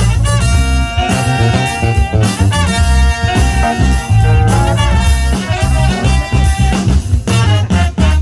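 A band playing an upbeat funk instrumental: horns hold the melody over a bass guitar and drum kit.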